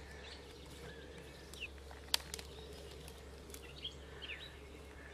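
Faint outdoor ambience: a few short bird chirps, with scattered sharp clicks, the loudest about two seconds in, over a steady low hum.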